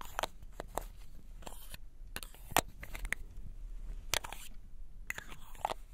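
Close-miked handling of a black plastic MAC lipstick tube: irregular sharp clicks and taps of fingernails and fingers on the case, about a dozen in all.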